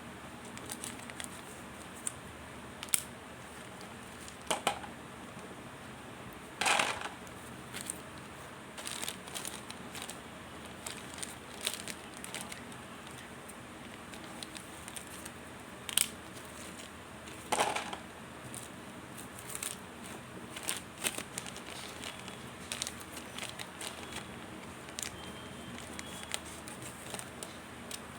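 Packaging of new mothballs being handled and opened, irregular crinkling with sharp clicks and crackles, a few louder ones scattered through.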